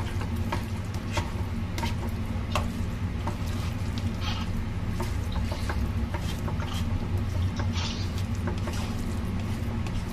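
Silicone spatula stirring and scraping a thick, wet mixture of grated radish and rice flour around a nonstick pan as it cooks into a dough, giving many short, irregular scrapes and clicks over a steady low hum.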